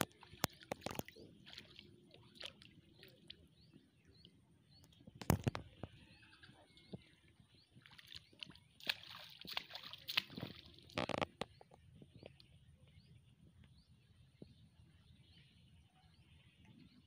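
Shallow muddy water sloshing and splashing as someone moves at the edge of a flooded field and casts a bamboo fishing pole's line, in scattered sharp splashes, loudest about five seconds in and again in a cluster around ten seconds.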